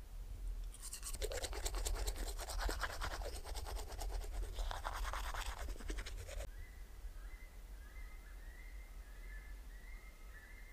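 Toothbrush scrubbing teeth in quick back-and-forth strokes for about six seconds. Once it stops, faint high chirping is left.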